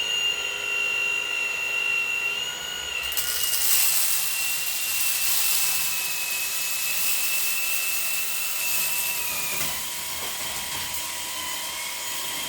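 Dreame V11 cordless stick vacuum running in Eco mode with its motor-driven roller brush spinning: a steady high-pitched motor whine. A rushing hiss of air joins about three seconds in, and the whine steps slightly higher near the end.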